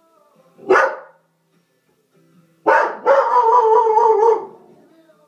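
Greyhound barking: one sharp bark under a second in, then another bark near the middle that runs into a drawn-out howl lasting over a second. Faint music plays underneath.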